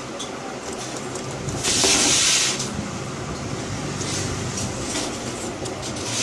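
Small screwdriver turning screws into a smartphone's plastic rear frame, with faint scattered clicks over a steady background hum. A loud burst of hissing lasts about a second, starting about two seconds in.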